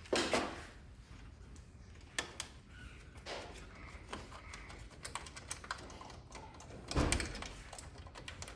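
Scattered clicks and light knocks of parts being handled inside an opened Xerox WorkCentre copier, with a louder knock about seven seconds in.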